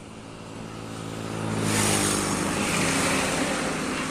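A motor vehicle passing close by. Its engine hum and tyre noise build to a peak about two seconds in, then ease off.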